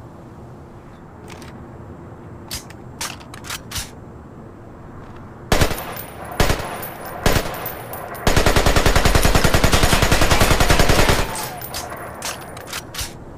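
AK-47 assault rifle firing: three single shots about a second apart, then a sustained fully automatic burst of about three seconds. Lighter clicks come before and after the shots.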